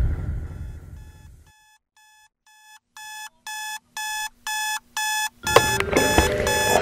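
Digital alarm clock beeping, about two beeps a second, growing louder, with a low boom fading out at the start. Music comes in over the beeping near the end.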